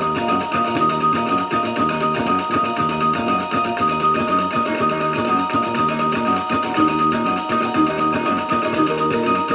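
Kulintangan music: a row of small tuned gongs struck in a quick, repeating melodic pattern that holds an even beat throughout.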